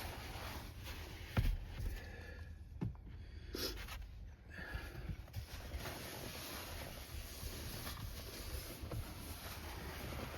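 Cloth wiping and rubbing over a truck's interior surfaces during cleaning, with a couple of soft knocks about a second and a half and three seconds in.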